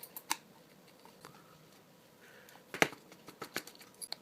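Scattered light clicks and rustles of plastic headphone parts being handled as the ear pad is pinched and pulled off the earcup, with one sharper click about three seconds in.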